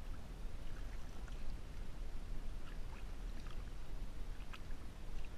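Water sloshing against a boat's hull, with scattered small splashes and drips where a hand holds a fish in the water alongside, over a steady low rumble.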